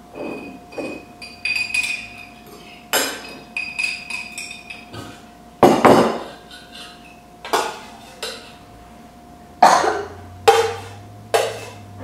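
Metal serving utensils and cutlery clinking and knocking against stainless steel pots, lids and plates while food is served at a table: a string of separate sharp clinks, the loudest about halfway through, over a faint steady hum.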